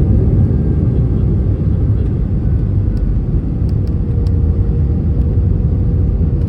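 Steady low rumble of an Airbus A320-200 heard from inside the passenger cabin: engine and airflow noise, with a faint steady hum above it.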